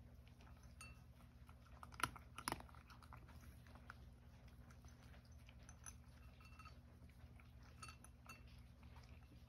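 Cat crunching and chewing dry kibble: faint scattered crunches throughout, with two louder ones about two seconds in.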